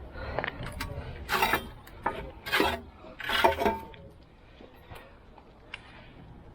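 Metal scrap clinking and scraping against a magnet fishing magnet: three short rattling bursts about a second apart, then quieter.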